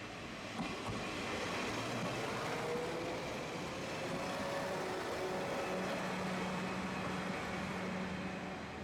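Vehicle running past close by. A whine rises slowly in pitch over the first half, and a steady engine hum joins it about halfway through.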